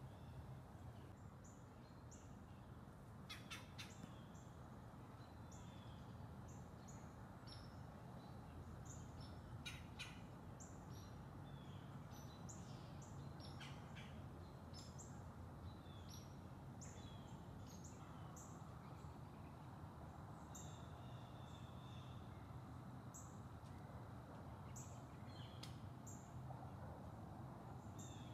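Faint woodland birds chirping, with many short, high, separate chirps scattered throughout over a quiet steady background.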